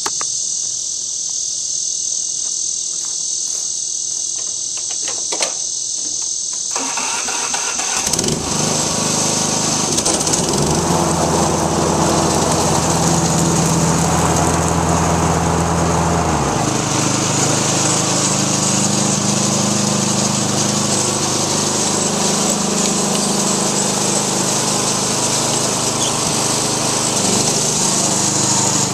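A Weed Eater One riding mower's Briggs & Stratton 875 series engine starts about eight seconds in and then runs steadily, its pitch shifting to a different speed about halfway through. Crickets chirp steadily before it starts.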